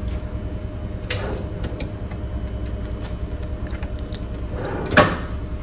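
Clicks and knocks of a steel console drawer being opened and rummaged through, with a louder knock about five seconds in, over the steady low hum of a ship's bridge.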